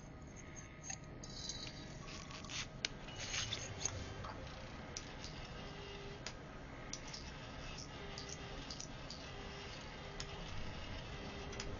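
Quiet background score with scattered small, sharp clicks and clinks, and a few short low tones in the second half.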